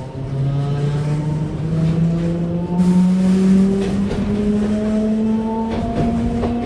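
Electric train pulling away: its motor whine climbs in distinct steps of pitch as it gathers speed, with a few sharp clicks near the end.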